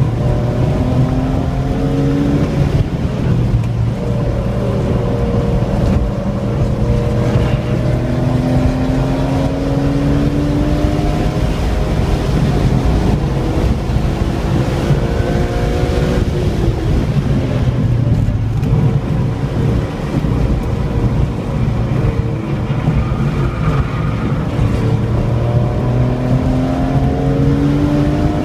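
A 2003 BMW M3's inline-six engine heard from inside the cabin, accelerating through the gears: its pitch climbs in four long rising sweeps, dropping back between them, over a steady low drone of engine and road noise.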